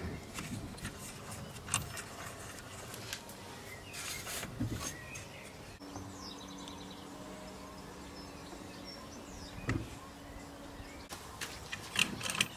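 Scattered clicks and knocks from the Evolution R255SMS sliding mitre saw being adjusted by hand: the bevel lock is worked and the head set to an angle. A faint steady hum from about the middle to near the end.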